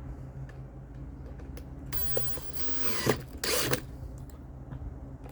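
Plastic motor housing of a Hoover backpack vacuum being worked into place by hand: plastic scraping and rubbing on plastic in two passes, the second louder, with scattered clicks.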